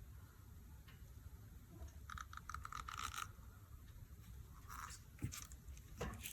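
Faint scraping and light clicks from hands working resin-casting cups and tools. A quick run of small scrapes comes about two seconds in, more scrapes come later, and a couple of sharp clicks come near the end.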